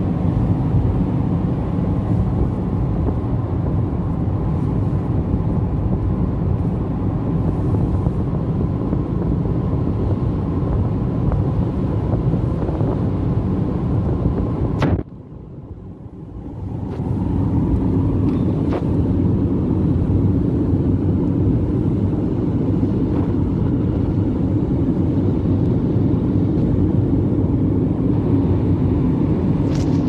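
Steady road and engine noise of a car driving at highway speed, heard from inside the cabin, a low rumble of tyres and wind. About halfway through it suddenly drops to a much quieter level for a second or two, then swells back.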